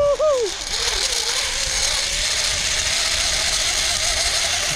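Zip-line pulley trolley running along its steel cable, a steady rushing whir with a faint whine that climbs slightly in pitch. A short shout comes right at the start.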